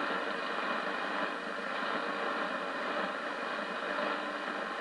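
Shortwave receiver in AM mode on 3955 kHz giving out a steady rushing hiss of static, with no programme audio coming through: a gap in the broadcast between announcement and music.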